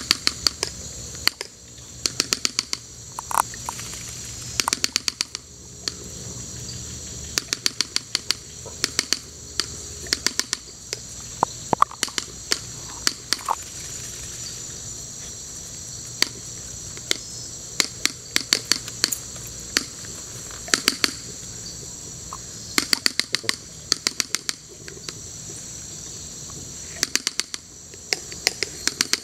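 Rapid little runs of sharp clicks, several in quick succession, repeating every second or two over a steady high-pitched drone.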